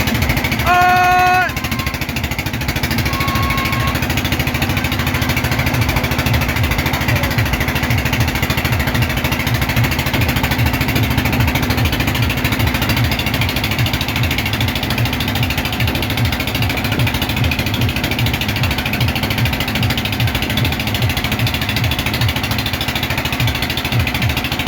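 Boat engine running steadily with a fast, even low thumping, typical of a small single-cylinder diesel on a country boat. A short, loud horn-like tone sounds once about a second in.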